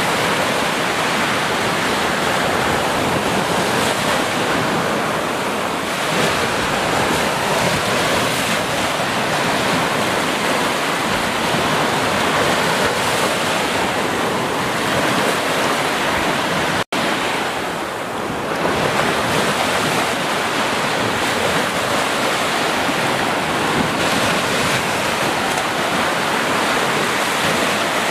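Small ocean waves breaking and washing up the sand as white foam: a steady rushing surf. The sound cuts out for an instant about two-thirds of the way through.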